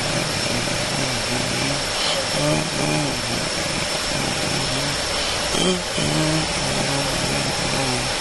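Steady whirring noise of a running vehicle's engine and fan, with a low voice mumbling in short phrases under it.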